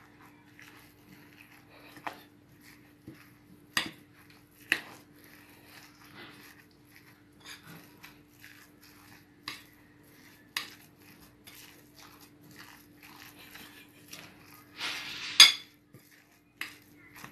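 A utensil mixing mashed squash and flour in a glass bowl, with irregular clinks against the glass and soft scraping; a denser scrape ending in the loudest clink comes near the end.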